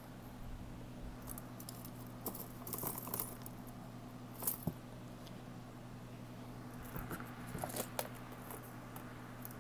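Faint clicking and rattling of costume jewelry (bead strands, chains and metal pieces) as a hand rummages through a plastic tub full of it. There are a few sharper clinks near the middle.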